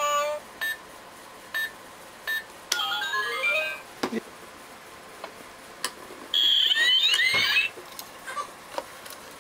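Toy electronic money safe beeping at single keypad presses, then playing a short rising electronic jingle as the code is accepted and it unlocks. A few clicks follow, then a louder warbling electronic tune about six seconds in.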